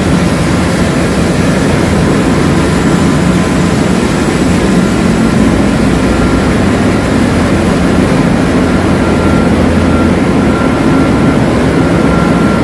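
Loud, steady machinery noise of a ship's engine room: running pumps and other plant make a low, even din, with a faint thin whine above it that comes and goes.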